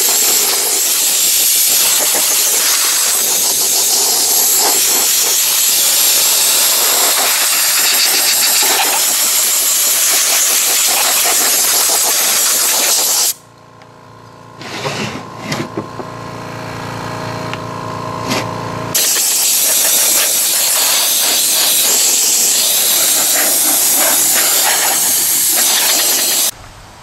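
Compressed-air blow gun blasting dust and cat hair out of a vintage tube transmitter chassis: a loud steady hiss for about thirteen seconds, then a pause of about six seconds with a quieter steady hum and a few knocks, then a second long blast that cuts off near the end.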